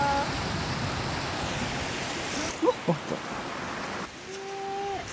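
A small mountain stream and waterfall running, a steady rushing hiss that drops in level about halfway through.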